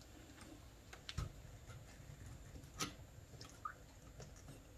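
A few faint, scattered metal clicks of a Rossi 92 lever-action rifle's lower tang being worked loose from the receiver, the clearest a little after one second and near three seconds.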